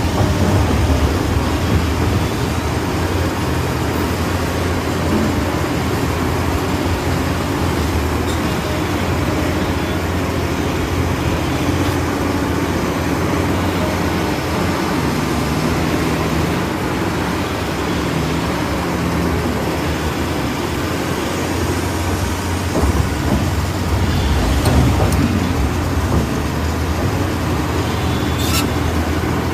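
Radio-controlled model excavators working, their motors and hydraulics running steadily, with brief shifts in pitch in the middle and a sharp click near the end.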